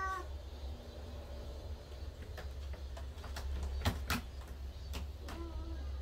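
Domestic cats moving about: the end of a meow right at the start, then scattered light clicks and taps, the sharpest about four seconds in, and a brief faint cat call near the end. A steady low hum runs underneath.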